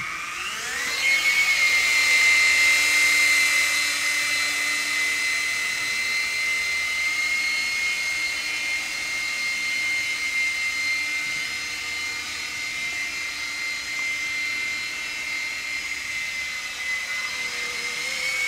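MJX F647 micro RC helicopter's electric rotor motors spooling up over about a second as it lifts off, then a steady high-pitched whine while it flies. The pitch rises briefly near the end.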